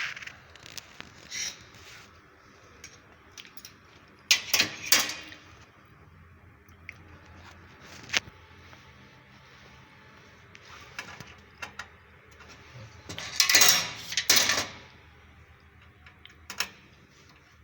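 Small metal parts and tools clinking and rattling as they are handled during panel work: scattered clicks, with two louder bursts of clatter, one about four seconds in and a longer one near thirteen seconds.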